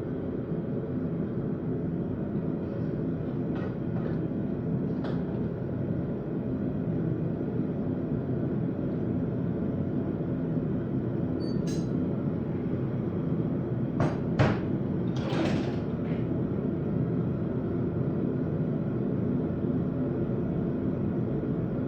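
A forge running with a steady low rushing noise, joined by a few light metallic clicks and, about fourteen seconds in, a louder clank and rattle of metal.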